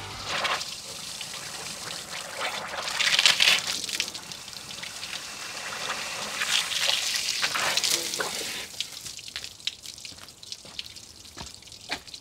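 Water from a garden hose running into an old Yanmar YM2000B diesel tractor's radiator, flushing vinegar out of the cooling system with fresh water. The flow surges louder about three seconds in and again around seven seconds, and a few light knocks come near the end.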